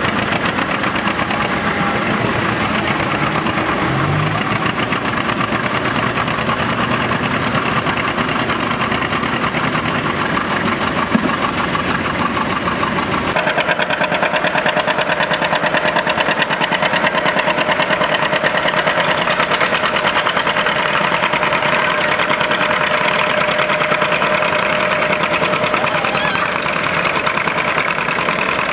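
John Deere two-cylinder tractor engines running hard on a pull track, their exhaust a rapid, even popping. First comes a John Deere 520 pulling with its front wheels up. The sound changes abruptly about halfway through to another two-cylinder John Deere.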